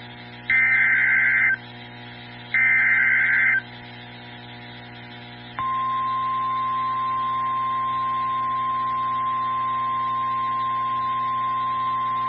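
NOAA Weather Radio emergency alert: two one-second bursts of warbling SAME header data tones, a second apart, then a steady 1050 Hz warning alarm tone that starts about five and a half seconds in and holds, signalling a severe thunderstorm warning.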